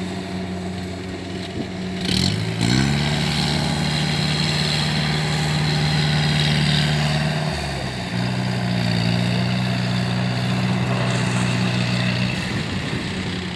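Engine of rice-harvesting machinery running under load. It revs up with a brief clatter about two seconds in, runs steadily, drops to a lower pitch around eight seconds, and eases off near the end.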